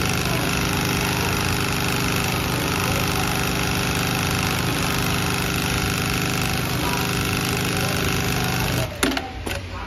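JYL-PM-01 automatic industrial hat sewing machine running at a steady speed, stitching rows into a cap brim with a fast, even mechanical hum. It stops suddenly about nine seconds in, followed by a few sharp clicks.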